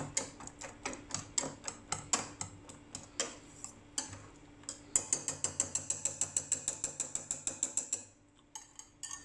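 Wire whisk clicking against a stainless steel saucepan while stirring a thick chocolate mixture with chopped nuts. The taps are irregular at first, then about halfway through become a fast, even run of about five clicks a second, which stops shortly before the end.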